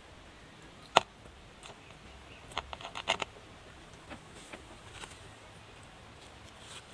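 A single sharp click about a second in, then a quick run of small clicks and knocks around three seconds in, with a few faint ticks after, over quiet room noise.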